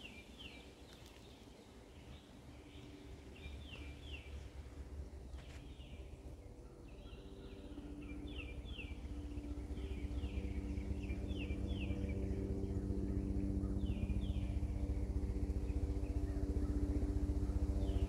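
A bird calling over and over in short quick chirps, in little groups. A low steady hum builds from about seven seconds in and grows until it is the loudest sound.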